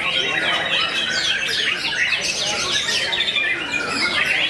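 White-rumped shamas singing, several at once: a dense, unbroken run of rapid whistles, trills and chattering notes.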